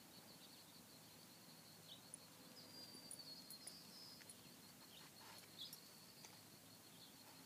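Faint natural ambience: a steady, finely pulsed high insect trill, with scattered short bird chirps.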